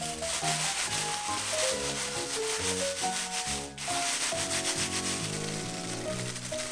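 Seasoned laver sheets being crushed into flakes by hand inside a thin plastic bag: a dense, continuous crinkling and crackling of plastic and dry seaweed, broken by a short pause a little past halfway.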